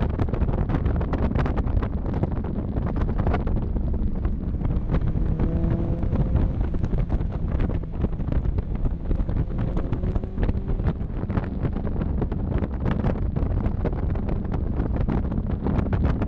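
Wind buffeting the microphone in the open cockpit of a 1993 Mazda Miata convertible at driving speed. The car's four-cylinder engine is faintly heard underneath, its note rising a couple of times.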